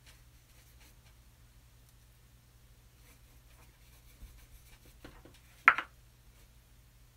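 Paintbrush strokes on a canvas: faint, scattered swishes of brush against the painted surface, with one brief, much louder scrape a little before the end.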